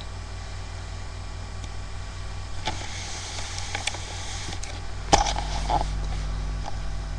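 Steady low electrical hum from a webcam's microphone, with rustling and clicks from about three seconds in and a sharp knock a little after five seconds, typical of the webcam being picked up and moved.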